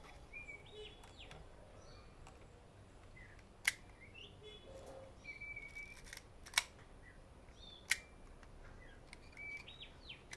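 Kodak Retina IIS leaf shutter clicking three times, sharp and brief, as it is tested at 1/250 second. Faint bird chirps in the background.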